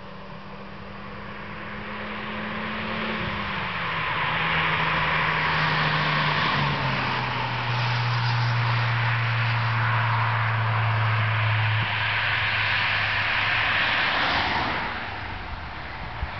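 An Audi A3 1.8T, a turbocharged four-cylinder car, driving past. Its engine tone steps down in pitch a few seconds in, under tyre and road noise that swells, holds loud, and fades near the end.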